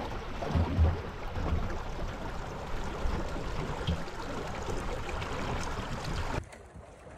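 Wind buffeting the microphone over the wash of choppy water on a small sailboat under way, with low gusty thumps. About six seconds in it drops suddenly to a quieter, duller wash.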